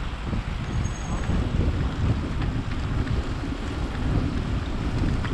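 Wind rumbling and buffeting against the microphone on a moving vehicle, a low, uneven gusting noise.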